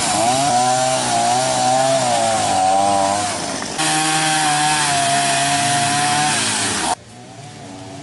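Chainsaw running and cutting branches, its revs wavering up and down. Near the end it gives way abruptly to a fainter, steady engine hum.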